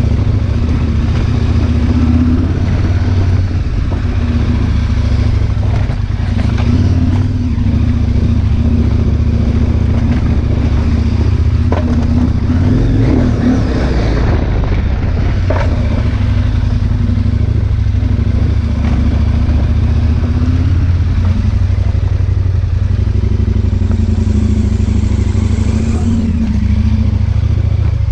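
Adventure motorcycle engine running at a steady low pace on a rocky dirt track, with a few knocks and clatters from stones under the bike around the middle.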